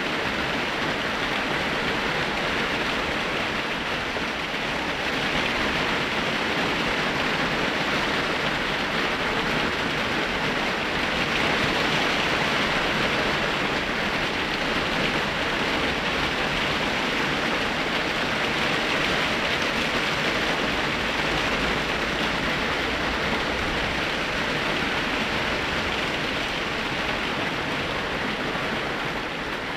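Rain falling steadily: an even, unbroken hiss with no let-up.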